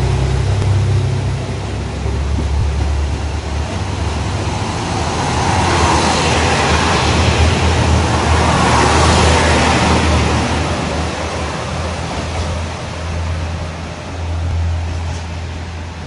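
JR Hokkaido Crystal Express diesel multiple unit pulling out past the platform: a steady low engine drone with rolling wheel-on-rail noise. The noise swells about halfway through and fades as the last cars go by.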